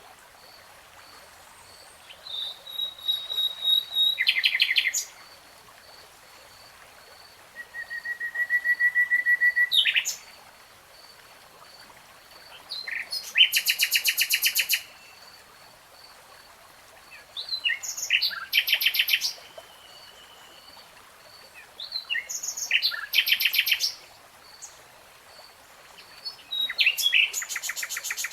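Nightingale singing in separate phrases every four to five seconds, each about two seconds long: fast trills and rattles, a held whistle, and a run of repeated notes that grows louder. A faint high note pulses steadily in the background between phrases.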